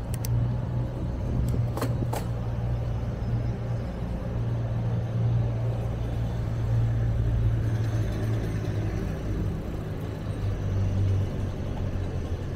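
Cars moving slowly on a city street: a steady low engine rumble, with a few sharp clicks about two seconds in.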